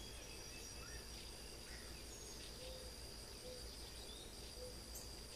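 Faint outdoor ambience: a steady high-pitched insect buzz, with a few faint short chirps scattered through it.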